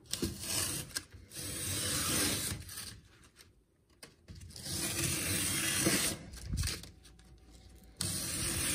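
An OLFA 25mm snap-off utility knife blade slicing through corrugated cardboard in several long strokes, each a rasping drag of about a second and a half with short pauses between.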